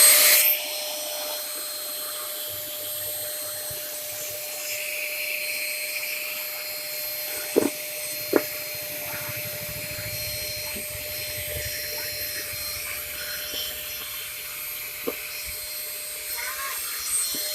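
Vacuum cleaner motor running with a steady whine, a little louder for the first half second, with a few short knocks and clicks about 7 to 8 seconds in and again near 15 seconds.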